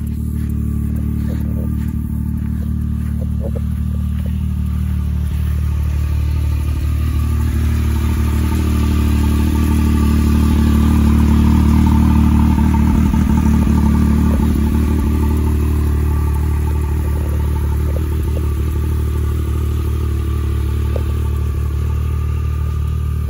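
Can-Am Maverick X3 Turbo RR side-by-side's turbocharged three-cylinder Rotax engine idling steadily. It grows louder about halfway through, at the exhaust outlet, then eases off again.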